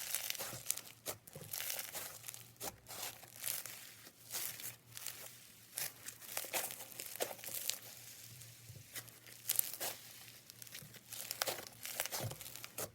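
Slime being squeezed and stretched by hand, giving dense, irregular crackling and popping clicks.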